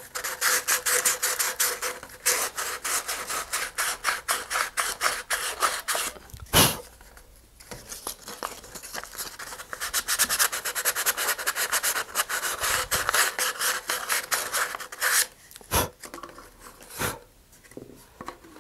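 Sandpaper rubbing in rapid back-and-forth strokes inside a cardboard rocket body tube, resanding its rear edge after the thin super glue sealing it has hardened, to get a loose slip fit for the coupler. A single thump about six and a half seconds in breaks the sanding, and a few separate knocks come near the end.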